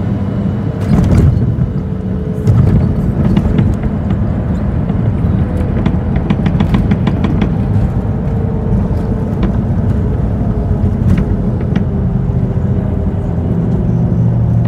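Boeing 737-700 touching down and rolling out, heard from a cabin window seat over the wing. There is a loud thump about a second in as the wheels meet the runway and a second one a moment later. Then comes the steady rumble of the CFM56 engines and the wheels on the runway, with a burst of rapid cabin rattling partway through the rollout.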